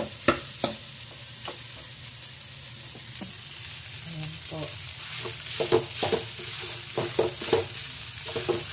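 Rice stir-frying in a wok with a steady sizzle, as a metal ladle scrapes and knocks against the metal pan. A few sharp clicks near the start, then quick repeated scraping strokes from about halfway on.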